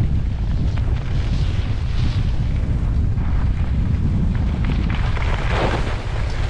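Wind buffeting the camera microphone while skiing fast down a groomed run, with the skis hissing over the snow. Near the end a louder, rougher scrape comes as the skis turn and slow.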